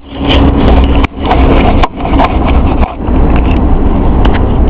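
Road noise inside a moving car: a loud steady low rumble, with frequent clicks and rubbing from the microphone being handled.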